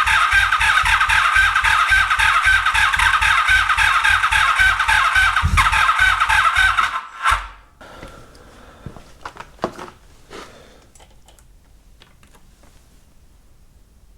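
The electric starter of a 1983 Honda Magna V45's 90-degree V4 engine cranking it with an even, rapid pulsing and a whine for about seven seconds, then stopping abruptly. The engine does not fire. A few faint clicks follow.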